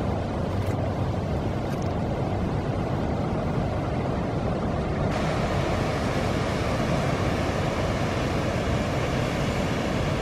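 A large river cruise ship passing close by: a steady low engine drone with the wash of its wake along the bank. The hiss grows brighter about halfway through.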